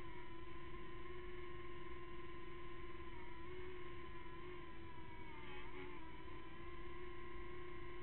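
The small motors of a Hubsan X4 V3 mini quadcopter whining steadily in flight, their pitch wavering briefly a few seconds in as the throttle changes.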